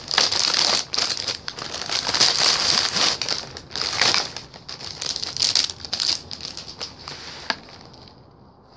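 Plastic biscuit packaging crinkling and crackling in irregular bursts as it is handled and unwrapped, thinning out and fading near the end.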